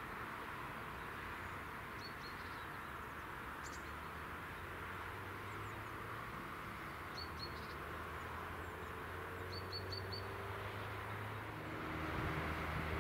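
Steady hum of distant traffic, with a small bird chirping in short runs of two to four quick notes several times. Near the end a low engine-like hum swells louder.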